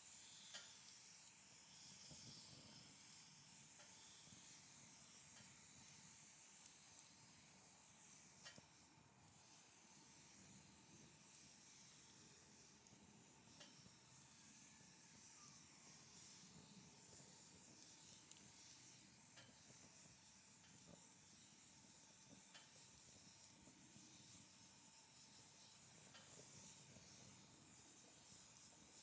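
Faint wood fire burning: a steady soft hiss with scattered small crackles and pops.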